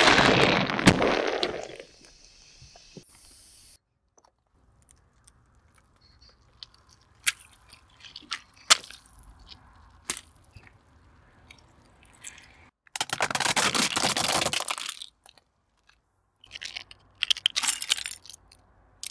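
Objects crushed one after another under a car tyre: a loud burst from a Coca-Cola bottle with a balloon on its neck, dying away over about two seconds, then scattered sharp cracks and pops as water-bead-filled balloons burst, another loud burst of crushing noise about thirteen seconds in, and crackling of breaking plastic near the end.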